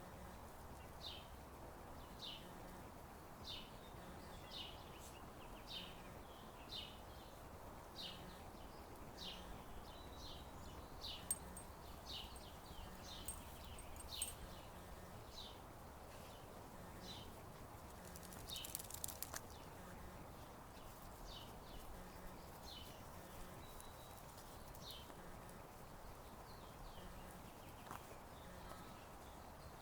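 A bird chirping over and over, short calls about once a second, faint over steady outdoor background noise. A brief burst of clicking comes about two-thirds of the way through.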